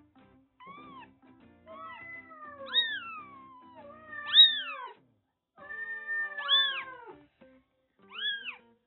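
Newborn kitten, eyes still closed, mewing: about six high-pitched cries that each rise and fall in pitch, a couple of them long and drawn out. Soft background music underneath.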